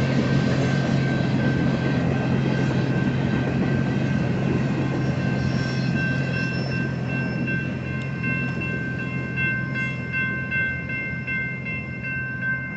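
BNSF freight train rolling past: a steady low rumble and the noise of the cars' wheels on the rails. Several steady high-pitched ringing tones sit over it and grow stronger about halfway through.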